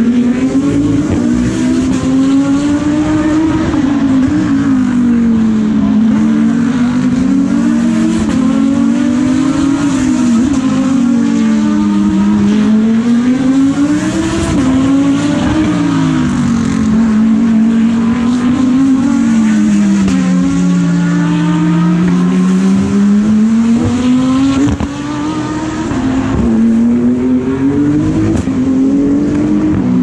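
GT3 race cars lapping the circuit, several engines heard at once, each rising and falling in pitch as it accelerates, shifts and brakes past the trackside.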